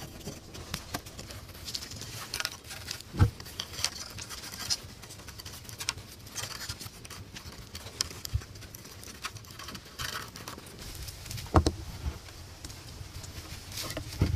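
Wooden ladder poles and rungs being handled and tied together: scattered small clicks, scrapes and rustles, with a few louder wooden knocks, one about three seconds in and two near the end.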